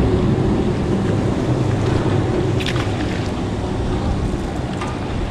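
Wind buffeting the microphone over a steady low rumble, with a couple of faint clicks about halfway through and near the end.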